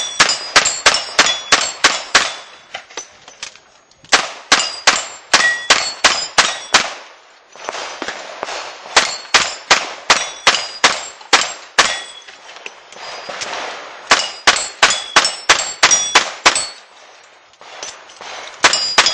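Revolver fired very rapidly at steel plates, each shot followed by the ring of a struck plate. The shots come in four fast strings, and a fifth starts at the very end. The pauses of about two seconds between strings are the shooter reloading the revolver.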